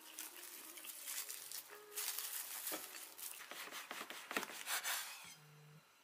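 Thin plastic bread bags crinkling and rustling as bagels are handled and unwrapped, then a knife cutting through a bagel on a wooden board, with a few sharp clicks. The rustling stops about a second before the end.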